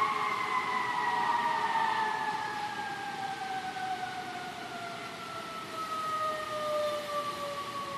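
Emergency vehicle siren, a long tone with several overtones sliding slowly and steadily down in pitch and fading, over a steady rush of hurricane wind through tree leaves.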